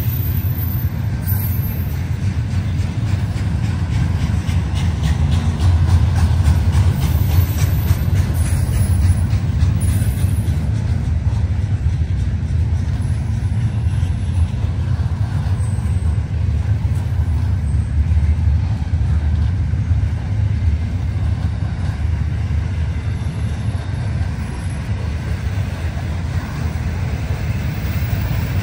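Freight train cars rolling past, a steady low rumble of steel wheels on rail.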